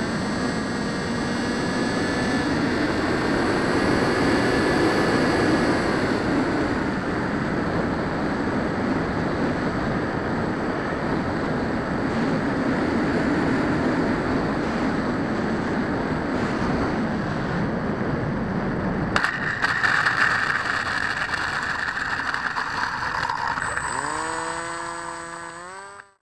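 Onboard sound of a model ultralight plane: the motor and propeller drone steadily under a rush of wind. About 19 s in the sound changes abruptly with a few knocks. Near the end the motor's pitch shifts in quick steps, then the sound cuts off.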